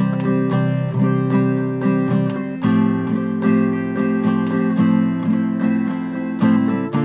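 Background music: a strummed acoustic guitar playing steady chords, the chord changing about two and a half seconds in and again near the end.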